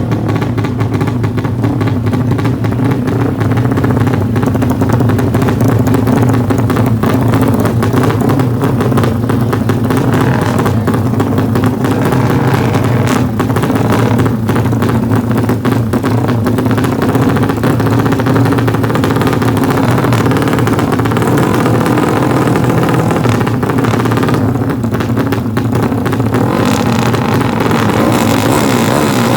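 Motorcycle engine running loudly and steadily.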